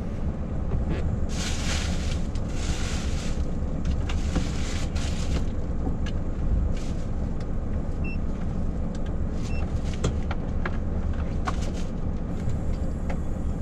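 A large diesel truck engine idling steadily, heard from inside the cab. Over it come a brief rustle in the first few seconds and scattered small clicks from handling things.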